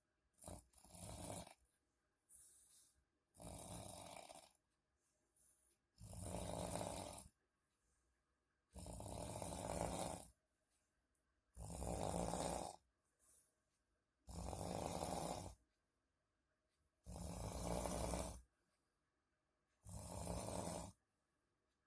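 People asleep, snoring. A few short, uneven snores give way, about six seconds in, to a steady rhythm of loud snores, one every two and a half to three seconds.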